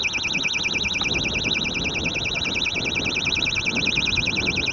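A continuous high-pitched electronic warbling tone, like an alarm or buzzer, pulsing rapidly and evenly, over low rumbling noise.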